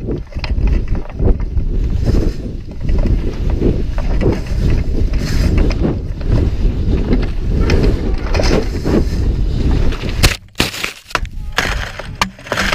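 Skis slicing through deep powder snow with heavy wind rush on the camera microphone, loud and surging irregularly turn after turn; the sound briefly drops out and comes back a little after ten seconds in, as snow sprays over the camera.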